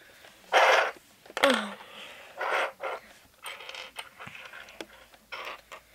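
Beyblade parts being handled and set down on a wooden table: light clicks and taps, among about five short hissing sounds.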